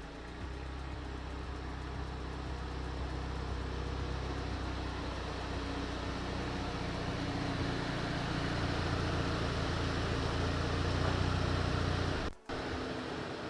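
Car engine running steadily, slowly growing louder, cut off briefly by a sudden dropout about twelve seconds in.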